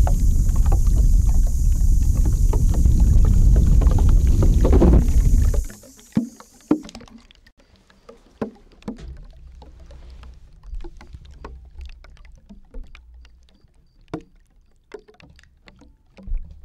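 Spray hissing steadily close to the microphone, with a heavy low rumble from the blast on the mic, cutting off suddenly a little over five seconds in. Scattered light clicks and taps follow.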